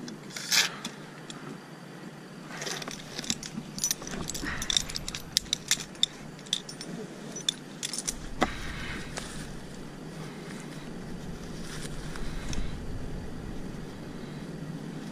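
Light metallic jangling and clinking: many short, sharp clicks, thickest in the first half, over a steady background hiss.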